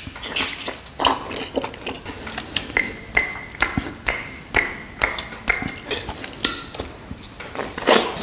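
Close-miked eating sounds: irregular wet smacks, bites and chewing as spicy mutton shank pieces are eaten off the bone, with sucking at the marrow. Many sharp clicks follow one another without a steady rhythm.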